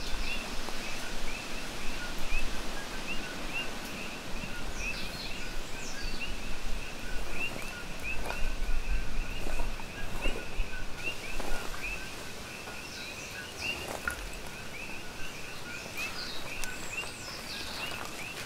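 Outdoor wildlife ambience: a high chirp repeated about three times a second throughout, with scattered higher bird calls over it and a few soft rustles in the middle.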